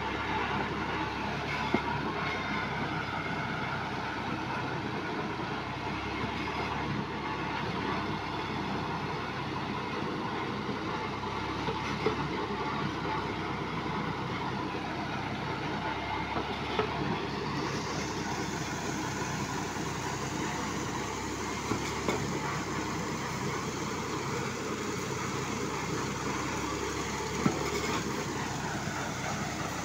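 Piling rig's engine running steadily, with a few sharp knocks scattered through.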